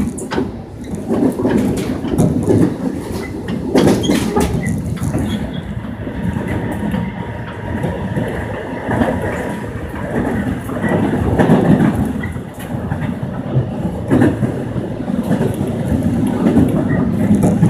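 Korail Line 1 resistance-controlled electric multiple unit (the 1x70 set) running on the rails, a steady rumble with the clickety-clack of its wheels over rail joints.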